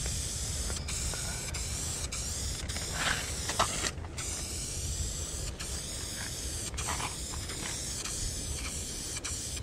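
Aerosol spray paint can spraying a steady hiss as a white undercoat fill is laid down on the wall, broken by several brief pauses where the nozzle is let go, the longest about four seconds in.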